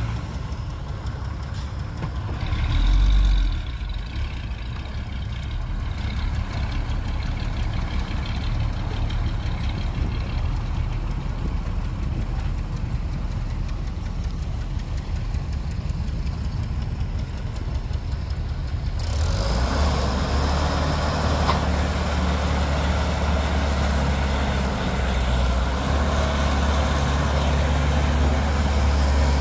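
Diesel engines of dump trucks and a Caterpillar excavator running steadily, with a brief low thump about three seconds in. About two-thirds of the way through, the engine sound becomes suddenly louder and fuller, with a steady low hum.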